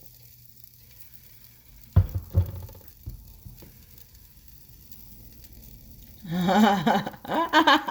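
Sausages sizzling in a frying pan, with two sharp knocks about two seconds in as a utensil or the pan is handled. A voice comes in near the end.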